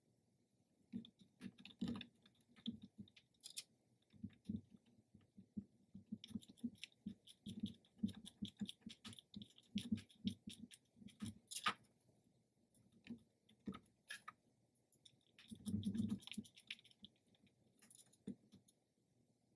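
Quiet hand-work sounds: a run of small clicks and taps with soft knocks, as the vinyl curtain cover and its small screw fasteners are handled and fitted onto a boat's fiberglass center console, with a louder flurry near the end.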